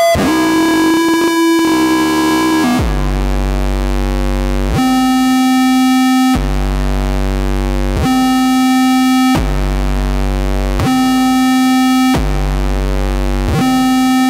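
Talkbox feedback loop played as a 'feedback organ', with its pitch chosen by keys held on a Suzuki keyboard instrument. It is a loud, buzzy, sustained feedback drone. It holds one pitch at first, then from about three seconds in switches back and forth every second and a half or so between a deep low tone and a higher tone.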